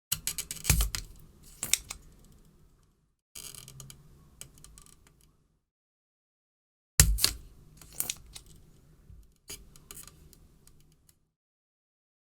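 Spring-loaded solder sucker (desoldering pump) at work: sharp snaps as the plunger is released, with smaller clicks and rattles of it being handled and re-cocked. The two loudest snaps come under a second in and about seven seconds in.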